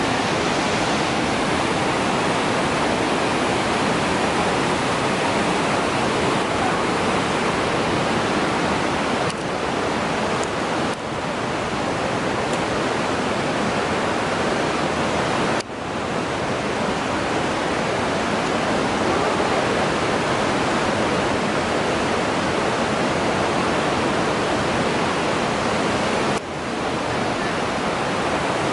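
Loud, steady rush of the Belaya River's water pouring through the rocky gorge, an even roar of white water with no let-up. Its level drops briefly about four times, roughly 9, 11, 16 and 26 seconds in.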